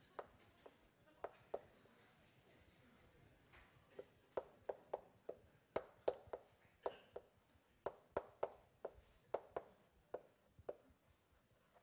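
A series of light, sharp taps and knocks at irregular spacing, some in quick runs of three to five, with a few seconds of near quiet at first.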